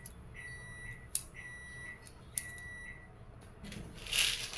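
BBs being thumbed one by one into a WE M92 gas pistol's metal magazine, with a sharp click about every second as each round is pushed in. Three short, steady high beeps sound between the clicks, and there is some handling noise near the end.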